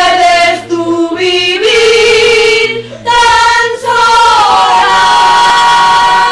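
Several women's voices singing together in long drawn-out notes, ending on one note held for about two seconds.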